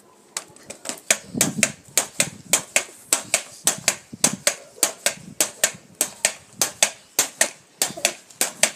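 Pogo stick bouncing again and again on hard paving: a quick, steady run of sharp clacks, several a second.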